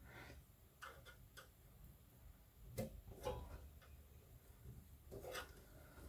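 Faint, scattered clicks and light taps from small parts being handled: a few separate ticks about a second in, a pair near the middle and one more near the end.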